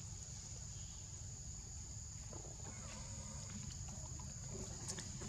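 Insects droning steadily at a high, even pitch, over a low constant rumble, with a few faint clicks.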